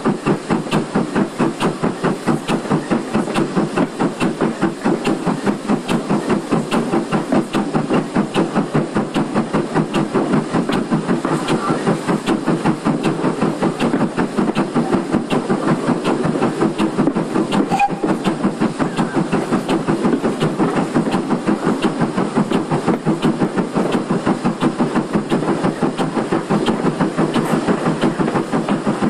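GWR 2800 class 2-8-0 steam locomotive No. 2857 working along the line, heard from its front running plate: a fast, even rhythm of exhaust beats with a hiss of steam.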